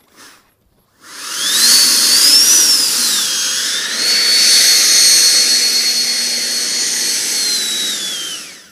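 Radio-controlled L-39 model jet's engine running with a high whine. It comes up about a second in, rises and dips in pitch as the throttle moves, holds steady, then winds down and stops near the end.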